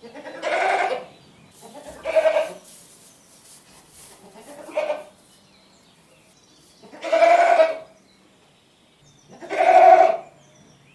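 A goat bleating five times with pauses between, the calls wavering in pitch and the longest lasting about a second, the third short and faint.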